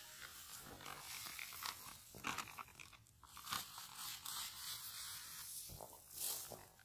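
Faint crinkling of a foil bag as it is emptied, and light footsteps crunching through grass and dirt, a soft crunch about every second.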